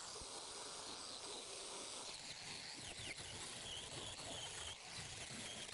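Faint outdoor ambience: a steady high hiss of insects, with a few short high chirps about halfway through and near the end. No grinder is heard.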